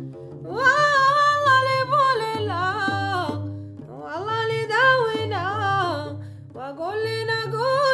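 A woman singing a Gnawa melody in three phrases with sliding, ornamented pitch, accompanying herself on the guembri, whose low plucked bass notes run on underneath.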